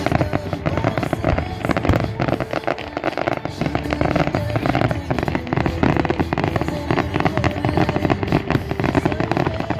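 Fireworks finale barrage: aerial shells bursting in rapid, overlapping succession, a dense unbroken string of bangs and crackles.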